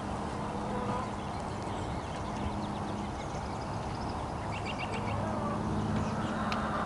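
Hens in a closed chicken coop clucking, with short high bird calls, over a steady low hum.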